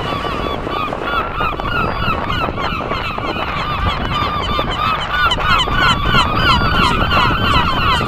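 A flock of gulls squawking, many short calls overlapping without pause and growing louder after the halfway point, over low wind rumble on the microphone.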